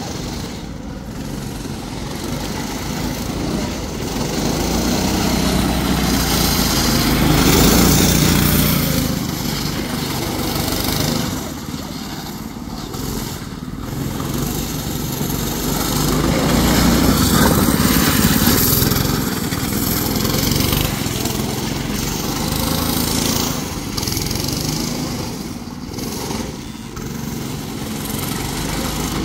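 Predator 6.5 hp single-cylinder engine on a drift trike running and revving as the trike drives along the street, growing louder and fading as it comes near and moves away.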